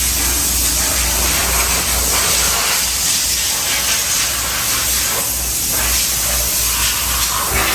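High-pressure water spray hissing steadily as it washes down a motorcycle, with a steady low hum underneath.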